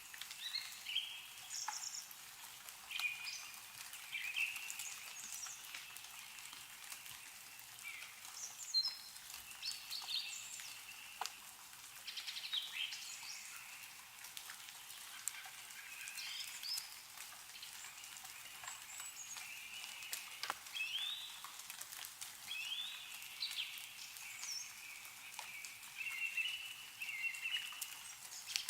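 Several small birds chirping and trilling back and forth, over a steady scatter of meltwater drips and small clumps of snow falling from the trees.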